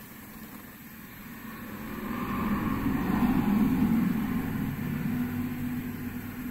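A motor vehicle passing by: engine and road noise swell to a peak about three seconds in, then fade away.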